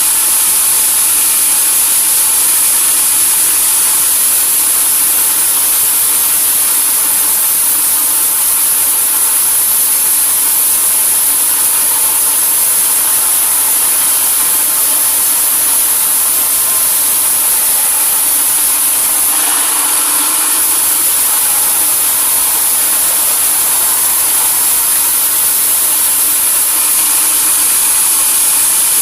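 Sawmill machinery running steadily: a loud, continuous mechanical noise with a strong high-pitched hiss.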